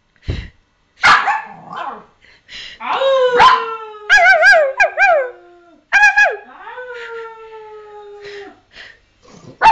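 Samoyed-husky puppy yipping and howling: short wavering yips, then two long drawn-out howls, one about three seconds in and one about six seconds in, each sliding slowly down in pitch.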